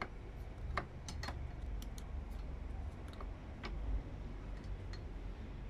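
Coil winding machine laying fine copper wire onto a transformer bobbin: irregular light clicks and ticks over a low steady rumble.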